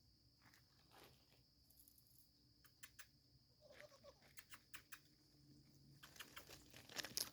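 Crickets chirring in a steady high trill, with scattered light clicks and rustles that grow busier and louder near the end as packaging is handled.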